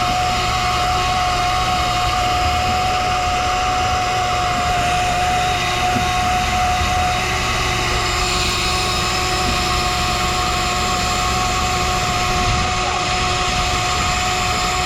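Boat engine running steadily, a continuous low rumble with a steady whine over it.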